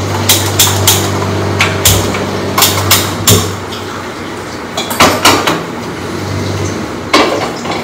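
A series of sharp clicks and metal knocks: a handheld gas lighter clicked to light a stove burner, and a metal pot clattering down onto the burner grate, over a steady low hum.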